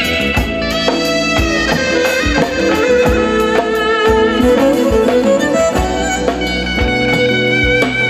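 Turkish folk tune played by a small band: a wooden reed pipe carries the melody over a bowed fiddle, a long-necked lute and a drum kit keeping a steady beat.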